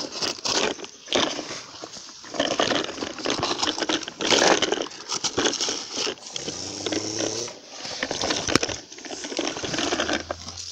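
Hoe blade chopping and scraping into loose dirt and dry leaves, in a run of rough strokes about one a second.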